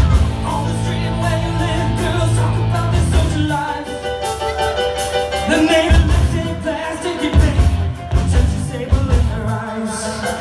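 Live rock band playing a song with singing: a held chord for the first few seconds, then the drums and bass come in with a steady beat.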